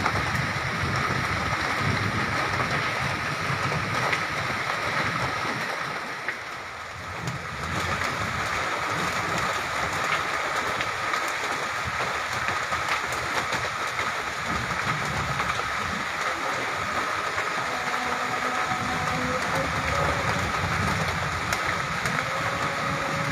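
A hailstorm with heavy rain: a steady downpour with many small scattered impacts through it, easing briefly about six seconds in.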